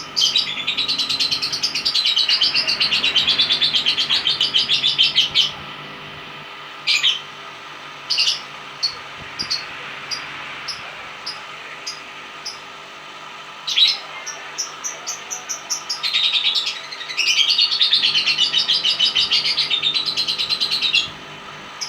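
Lovebird singing its long 'ngekek' chatter: a rapid, unbroken high chattering trill lasting about five seconds, then scattered short chirps, then a second long chatter of about five seconds near the end.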